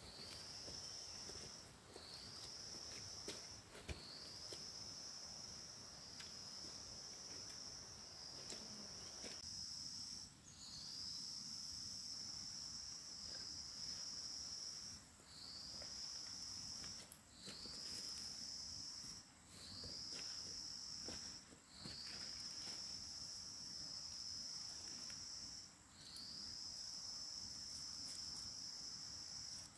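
A high insect drone in repeated bouts of one to four seconds, each starting with a short upward slide in pitch and then holding steady, with brief gaps between. Faint rustling and a few soft clicks underneath.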